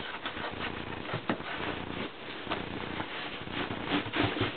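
Irregular rustling and crackling of parcel packaging and nylon gear being handled and pulled out by hand, with scattered light clicks.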